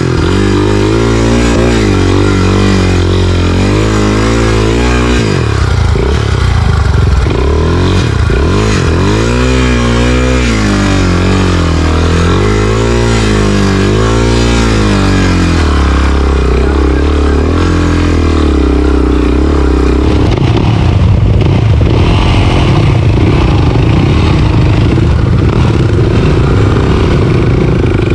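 Enduro dirt bike engine revved up and down again and again, each rise and fall lasting a second or two. From about two-thirds of the way in it runs more steadily under throttle.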